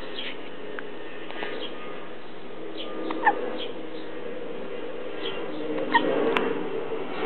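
Two hiccups, each a short sharp squeaky 'hic', about three seconds apart.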